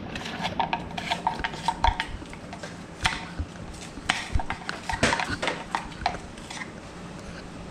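A metal screwdriver scraping, picking and clicking irregularly as it digs styrofoam filler out of a rifle's hollow buttstock.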